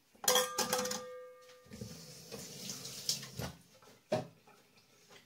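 Kitchen dishes being handled: a glass bowl knocks against a stainless-steel bowl, which rings on for about a second and a half. Then comes a hissing rustle and a few lighter knocks.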